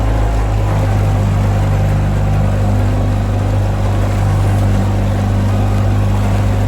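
An engine running loudly and steadily at a constant speed, with a deep hum.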